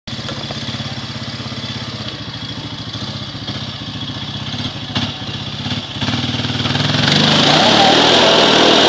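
Small-vehicle engines idling with a steady low pulse, then revving up and getting louder about seven seconds in, as the strapped-together ATV and golf cart start to pull against each other.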